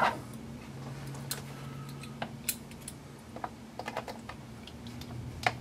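Scattered light, irregular clicks and taps of small hardware and plastic parts being handled as a small nut is fitted onto a screw in an RC truck chassis, with one sharper click near the end.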